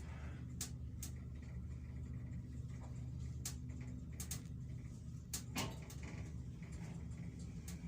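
A 2007 MosLift passenger elevator car in motion: a steady low hum with scattered sharp clicks and ticks from the cab.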